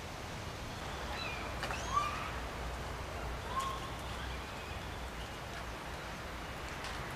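A few short bird chirps, a cluster about one to two seconds in and one more near three and a half seconds, over a steady low background hum.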